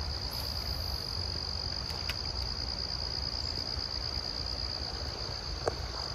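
A steady, high-pitched insect trill held as one unbroken tone, over a low rumble, with a couple of faint clicks.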